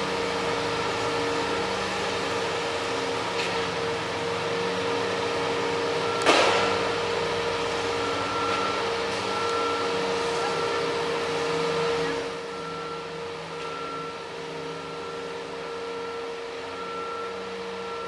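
Construction site machinery running with a steady hum, a single sharp metallic bang about six seconds in, and short high beeps repeating under a second apart after it. The sound drops in level about twelve seconds in.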